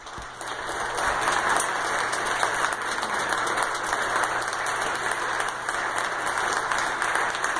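Audience applauding after an organ piece ends, the clapping building up over the first second and then going on steadily.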